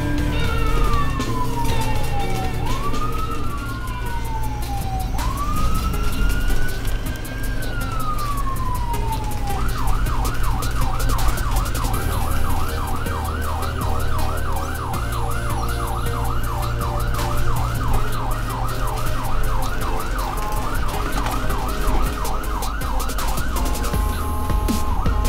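Ambulance siren: a slow wail rising and falling three times, switching about ten seconds in to a fast yelp that warbles up and down several times a second.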